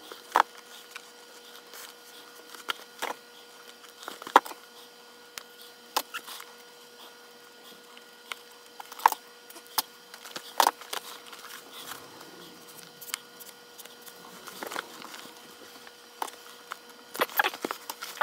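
Irregular sharp clicks and taps of hands working a leather baseball glove while relacing it with a metal lacing needle and leather lace, over a faint steady hum.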